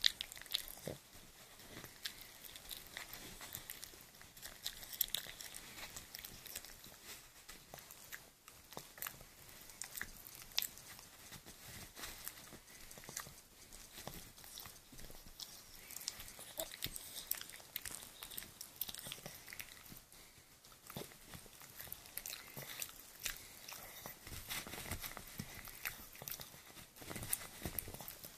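A toothless Cavalier King Charles spaniel gumming and chewing a dental chew stick, giving irregular soft clicks and crunches.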